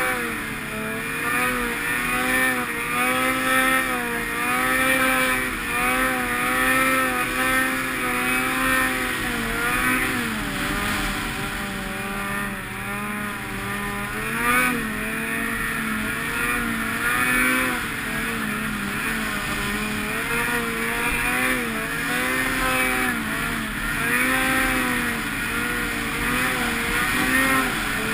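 Snowmobile engine running hard, its revs rising and falling over and over as the sled rides across snow. A short, sharp, louder knock comes about halfway through.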